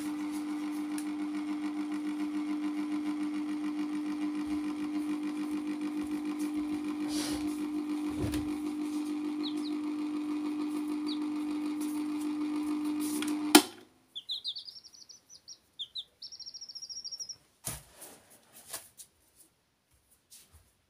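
A steady hum at one constant pitch stops suddenly with a sharp click about two-thirds of the way through. Then a domestic chick peeps in quick runs of high, rising chirps, followed by a few soft taps.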